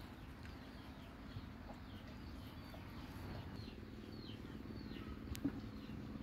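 Two dogs eating from a shallow plastic tray, with small birds chirping over and over in the background. A single sharp click comes about five and a half seconds in.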